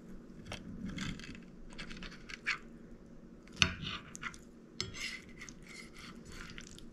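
A metal cake server cutting through a gelatin salad, scraping and tapping against a glass serving plate. The strokes are short and irregular, the sharpest about three and a half seconds in.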